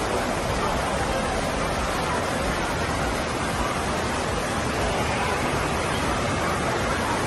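Steady rushing and churning of water-park pool water around riders in inner tubes.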